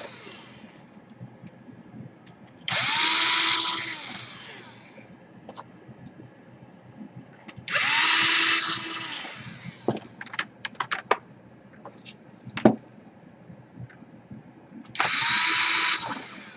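Small electric screwdriver driving screws into a laptop's case: three short runs of about a second each, the motor whine spinning up, holding and winding down, with light clicks and one sharp knock of handling between the second and third runs.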